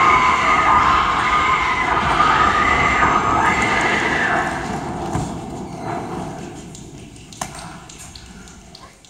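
Young voices shouting and wailing in high, wavering tones, fading out over the first five seconds. A few faint knocks follow near the end.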